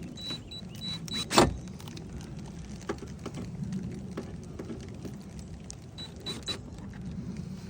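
Cordless drill run in short bursts to drive in a tail-light mounting bolt, with a sharp click about a second and a half in and small knocks as the light is fastened.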